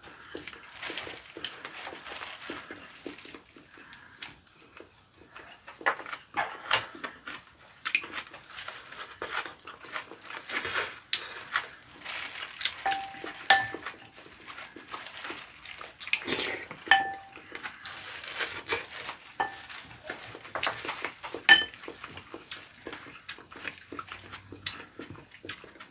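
Close-up tableware clatter during a meal: wooden chopsticks clicking and scraping against ceramic and glass bowls, with several short ringing taps on a dish. Plastic gloves crinkle and boiled chicken is torn apart by hand between the taps.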